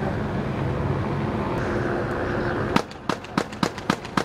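A rapid string of six gunshots, about three a second, starting near the end, from police firing in an officer-involved shooting. Before them, a steady rumble of idling vehicles.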